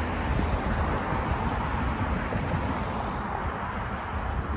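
Wind buffeting the microphone with a steady rumble, over the road noise of cars passing through the crossing.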